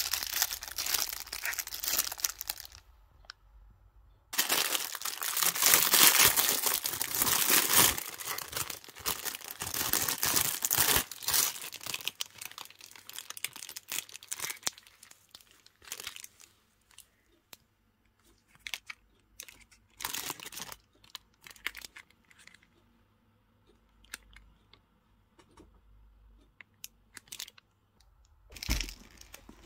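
Handbag packaging being unwrapped by hand: paper and wrapping rustling, crinkling and tearing in dense spells, then thinning out into occasional short rustles and taps, with a brief loud rustle near the end.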